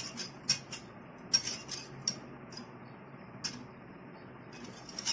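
A wire balloon whisk stirs milk and cornstarch in a metal pan, its wires clinking against the pan at irregular moments, the loudest about a second and a half in. The starch is being gently whisked cold until it dissolves.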